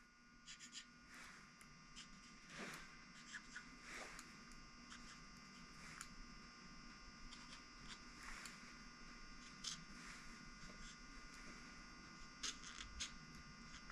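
Near silence: a faint steady electrical hum, with scattered light scratches and taps as valves are marked with a pen and handled.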